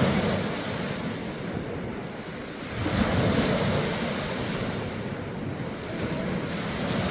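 Small sea waves breaking and washing up the beach, one swelling about three seconds in and another near the end, with wind buffeting the microphone.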